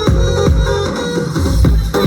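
Electronic dance music played through a DJ sound system during a sound check: a fast, heavy kick drum that drops in pitch on each beat, under synth tones. The kick drops out for a moment just past the middle, then comes back.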